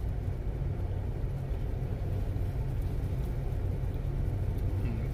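Steady low rumble inside a van's cabin.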